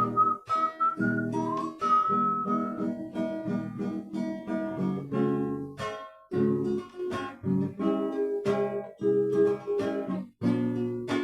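Acoustic guitar strummed in chords, with a whistled melody over it for about the first three seconds.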